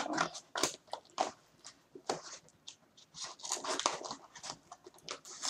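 A mailing package being handled and opened: irregular crinkling, rustling and scraping of its wrapping.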